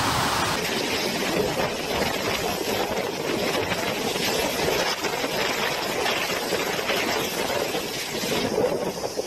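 Typhoon wind and storm surf breaking over a waterfront, a steady rushing noise with no voices. The sound changes character about half a second in and again near the end.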